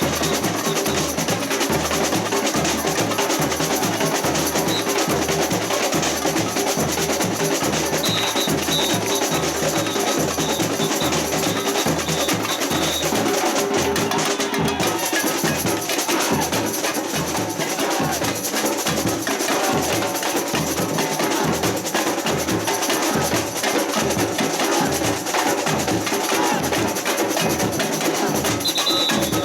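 Samba percussion band playing batucada: bass drums pound a steady, even beat under snare drums and clacking hand percussion.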